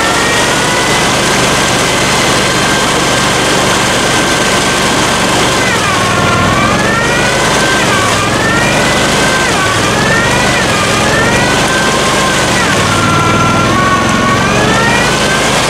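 Tracked Argo amphibious ATV's engine running under load, with a steady whine; from about six seconds in, the pitch dips and rises several times as it is worked to climb out of deep mud.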